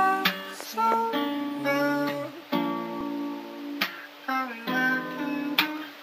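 Music without vocals: a slow guitar melody of picked notes and chords, each ringing out.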